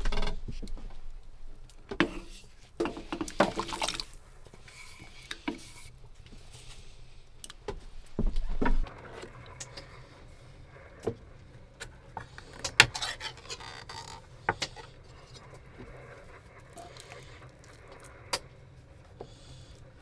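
Scattered clicks, taps and knocks as tins, a knife and a wooden cutting board are handled in food preparation, with a longer low rumbling thump a little before halfway.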